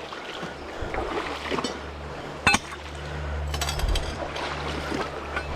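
Steady rushing of river water and wind. About two and a half seconds in there is a sharp knock, and a quick rattle of clicks comes around four seconds in, from a small metal shovel, used as a walking stick, striking the rocks.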